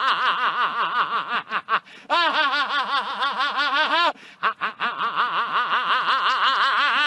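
An elderly man laughing hard in a rapid, high-pitched cackle of quick repeated 'ha-ha' pulses, about six a second. The laugh comes in three long runs, with short breaks for breath about a second and a half in and about four seconds in.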